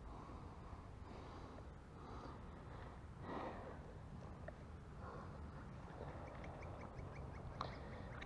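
Faint close breathing and soft rustling, with a short run of quick, high pips about six seconds in.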